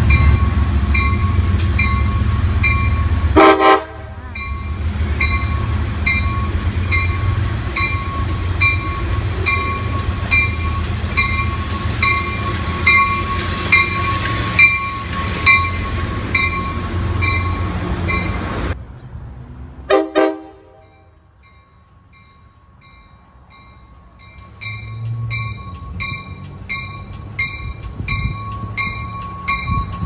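Amtrak Surfliner train horn giving two short toots, one about three seconds in and another about twenty seconds in, over the rumble and rolling noise of the passing train. A bell rings steadily about once a second through most of the time between and after the toots.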